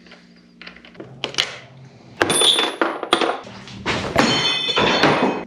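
Metal tools and parts clanking: several sharp knocks from about two seconds in, each leaving a high metallic ring, then a stretch of rattling near the end.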